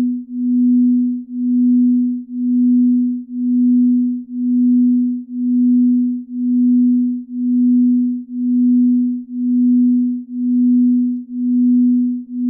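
Binaural-beat sleep tone: a steady low pure tone near 250 Hz that swells and fades about once a second, in an even pulse.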